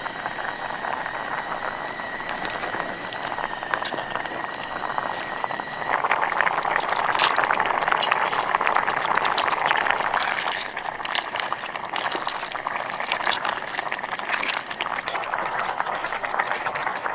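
Food cooking: a dense bubbling, crackling sizzle that grows louder about six seconds in, with a faint steady high tone under it at first.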